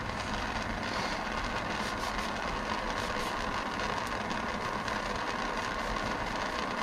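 Handheld gas torch burning with a steady hiss, with a few faint cloth rustles on top.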